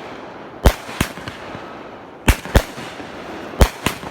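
A 200 gram consumer firework cake firing: six sharp bangs of shots bursting overhead, coming roughly in pairs about a second apart.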